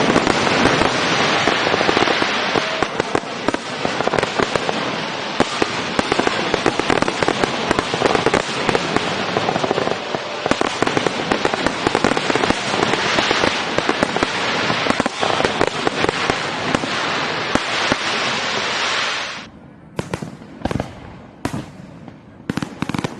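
Fireworks going off in a dense, continuous barrage of bangs and crackles. Near the end it suddenly thins out to separate sharp bangs with short gaps between them.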